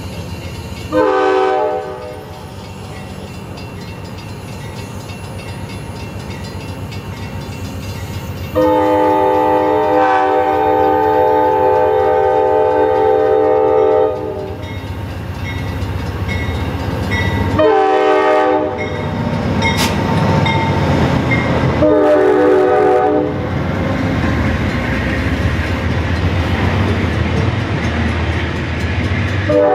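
Amtrak GE P42DC diesel locomotive's multi-note air horn sounding for a grade crossing as the train departs: a short blast about a second in, a long blast of about five and a half seconds, two short blasts, and another starting near the end. Between blasts the diesel engine's rumble grows as the locomotive draws near and passes. It is followed by the rumble and clatter of the passenger cars' wheels on the rails.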